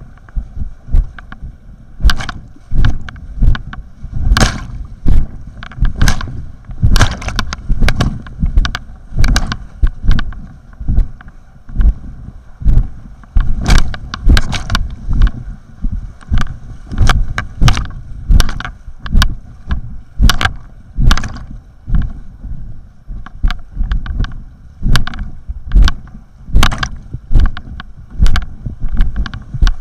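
Kayak paddle strokes splashing into the water in a steady rhythm, roughly every three-quarters of a second, over the constant rush of river rapids.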